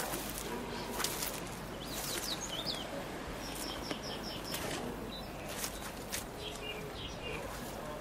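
Blue-tailed bee-eater calling: short high chirps, with a quick run of about five repeated notes near the middle. Heard over a steady outdoor hiss with scattered sharp clicks.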